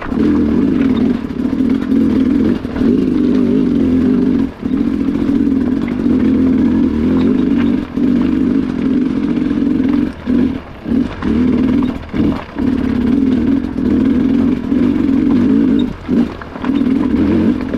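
Two-stroke Sherco enduro dirt bike engine running hard under load while being ridden off-road, its pitch wavering with the throttle. The throttle is shut off briefly a few times, several in quick succession about two-thirds of the way in and again near the end.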